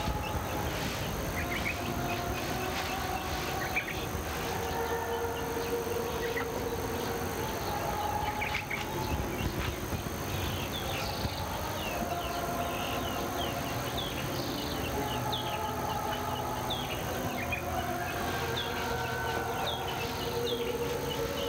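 Outdoor morning ambience of many short bird chirps, coming thicker in the second half, over a steady high drone. Long, wavering lower tones sound underneath throughout.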